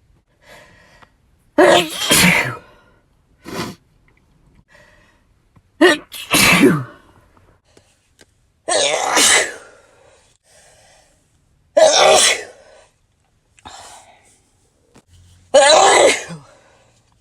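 A run of human sneezes: five loud ones about three seconds apart, each a sudden burst of breath and voice, with fainter short sounds between them.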